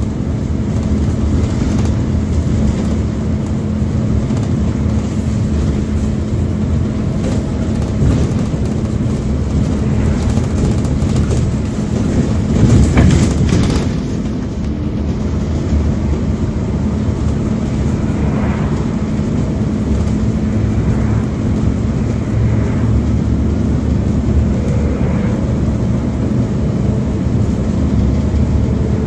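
MAZ 205 articulated city bus heard from inside the cabin while driving: steady engine drone and road noise, with a brief louder rush of noise about halfway through.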